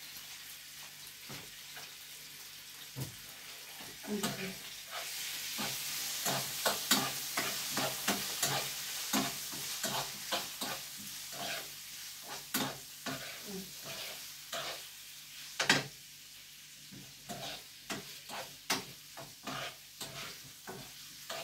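Pieces of turkey breast sizzling in a frying pan while being stirred, the utensil clicking and scraping against the pan many times. The sizzle grows louder about five seconds in and eases off in the last few seconds.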